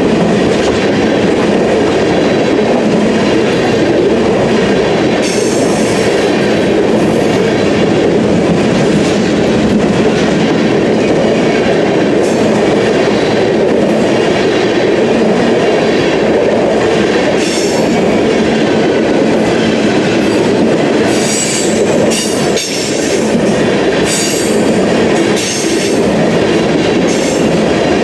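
A string of empty ethanol tank cars rolling past, their wheels making a steady loud rumble on the rails. A few brief high-pitched wheel squeals cut in, most of them in the last third.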